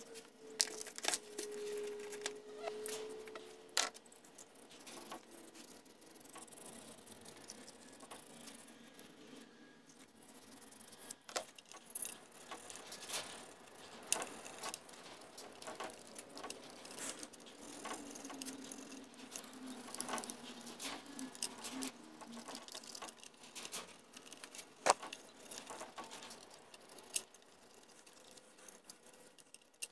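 Light, irregular clicks, taps and rattles of small metal parts being handled and rubbed while cleaning out a Johnson 15 HP outboard's choke solenoid and its linkage, with one sharper click near the end.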